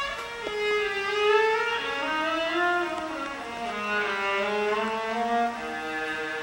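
Ballet orchestra playing a slow, lyrical melody on a solo bowed string instrument over soft accompaniment; the line sinks lower about four seconds in and then climbs again.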